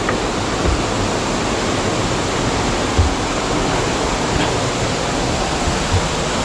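Waterfall pouring steadily: an even, unbroken wash of falling-water noise, with a few brief low thumps.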